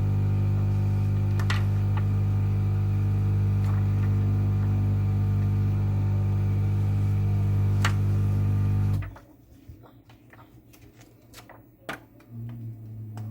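Hot-air rework tool's blower running with a loud, steady hum, cutting off abruptly about nine seconds in. A few light clicks of handling follow in the quiet.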